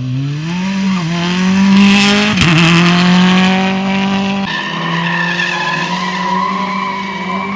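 Rally car engine revving up and held at high revs, with tyres squealing. The pitch wavers briefly a little over two seconds in and steps down about halfway through before holding steady again.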